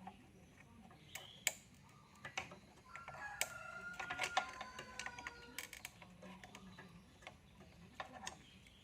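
A drawn-out bird call about three seconds in, lasting a couple of seconds, amid scattered light clicks and taps.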